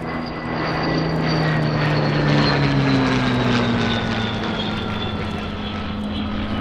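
Three Rolls-Royce Merlin V12-engined warbirds, a Spitfire Mk I, a Hurricane and a Hispano Buchon (Bf 109), flying past in formation. The combined propeller-engine note is loudest about two to three seconds in and drops steadily in pitch as they go by.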